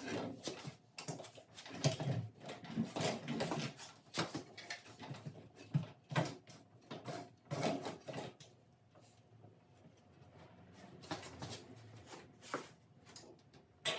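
Irregular metal clunks, knocks and scrapes of a VW air-cooled engine being shifted on a jack and pushed against the transaxle, its 12-volt flywheel hitting the 6-volt transaxle's housing. Busy over the first half, then sparser.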